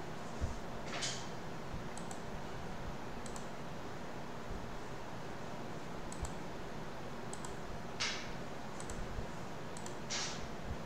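Scattered computer mouse clicks, a second or more apart, over a steady faint hiss, with a few short soft swishes among them.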